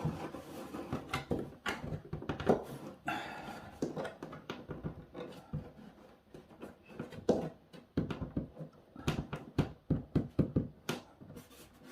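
Hard plastic toy playset pieces knocking and clicking in irregular handling sounds as a bridge piece is worked into its slots.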